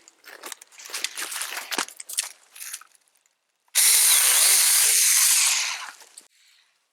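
Dry dead wood crackling and snapping, then a battery-powered mini chainsaw cutting for about two seconds. The cut starts suddenly about four seconds in, a loud steady rasp that fades out near the end.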